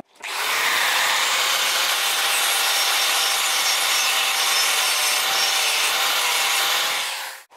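Angle grinder's abrasive disc grinding steadily against the steel tang of a leaf-spring cleaver, scuffing it rough so the handle glue will grip.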